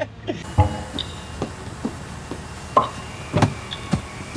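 Irregular dull wooden knocks and thumps, about six, the loudest about three and a half seconds in, as a heavy Douglas fir bowsprit is worked through the bulwarks and bumps against the woodwork.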